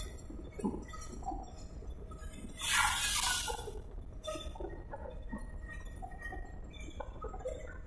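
Ride noise from inside an open-sided vehicle moving along a road: a steady low rumble with wind, and a short burst of hiss about three seconds in.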